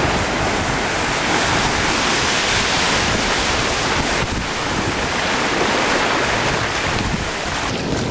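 Ocean surf washing and foaming up a sandy beach, with wind buffeting the microphone: a steady, loud rush that thins out a little just before the end.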